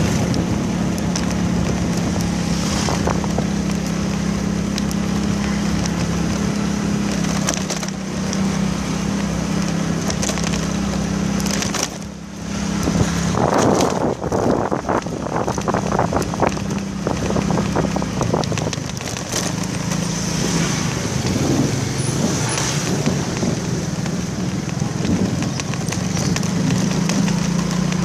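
Motorcycle engine running at a steady low hum while riding, with wind rushing over the microphone. The sound drops briefly about twelve seconds in, then turns rougher and choppier for a few seconds.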